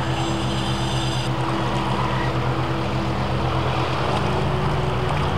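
An engine running steadily with a low pulsing drone, over the rushing of a swollen, muddy river in flood; the drone shifts slightly about four seconds in.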